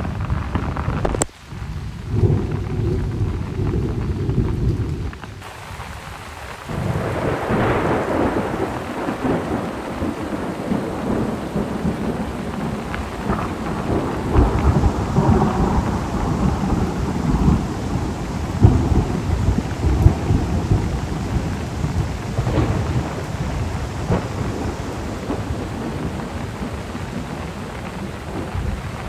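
Steady heavy rain with thunder rumbling low and long. There is a brief dropout just over a second in and a quieter stretch around five to six seconds, after which the rumble swells again.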